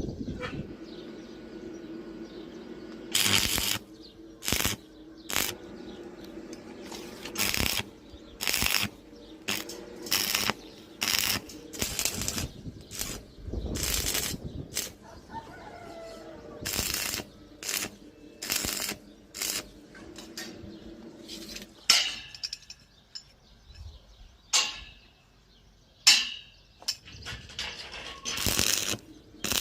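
Metalworking noise: a run of short, harsh bursts of noise, roughly one a second at irregular spacing, over a steady low hum that drops away about two-thirds of the way through, leaving a few spaced bursts.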